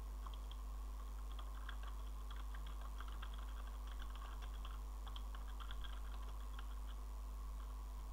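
Computer keyboard being typed on: quick, irregular runs of light key clicks that stop near the end, over a steady low hum.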